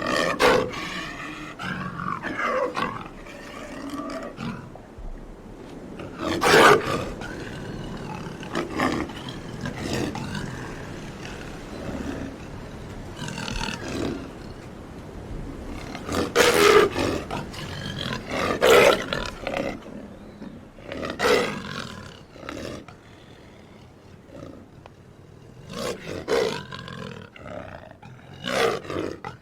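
A string of big-cat roars and snarls used as monster-cat sound effects, one after another with short gaps, the strongest about six and seventeen seconds in.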